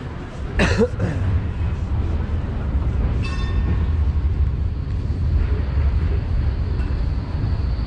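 A city tram running past with a steady low rumble, set off by a brief loud rush of noise under a second in. About three seconds in, a short ringing tone sounds over it.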